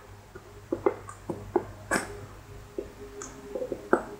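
Irregular clicks and knocks, with the loudest about two seconds in and again near the end, from plastic bottles and a container being handled while slime ingredients are prepared.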